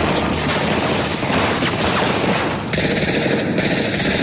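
Rapid, sustained gunfire, many shots in quick succession, with a change in its texture near the end.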